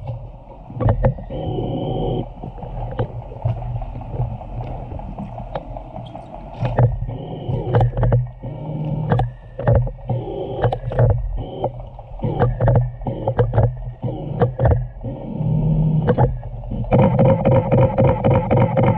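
Killer whale calls heard underwater: short held squealing tones and clicks at intervals, turning into a loud run of rapid pulsed calls near the end, over the steady low hum of a boat engine carried through the water.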